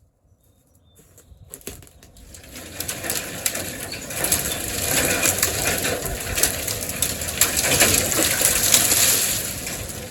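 A tree coming down through tangled canopy: leaves and branches swishing, crackling and snapping, growing louder over several seconds and dying away near the end.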